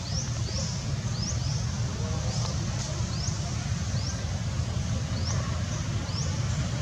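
A bird calling with short, high rising chirps, about two a second, over a steady low rumble.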